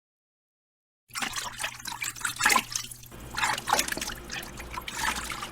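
Liquid trickling and dripping in quick, irregular splashes, starting about a second in after total silence.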